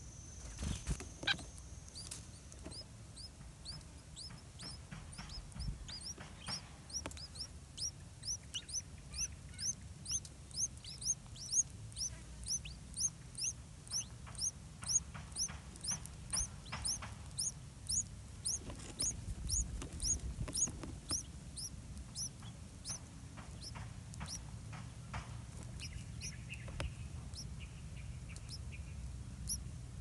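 Bulbul nestlings begging in the nest: a steady run of short, thin, high chirps, about two a second, loudest in the middle stretch.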